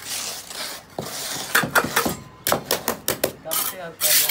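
Steel trowel scraping wet cement across a tile mould, with a quick run of sharp taps and clinks as the blade knocks against the mould and cement from about a second and a half in.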